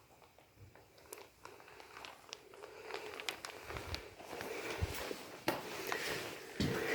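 Footsteps on a dry path, starting as scattered crunches and clicks and growing louder and more continuous from about halfway through, with a few dull low thuds.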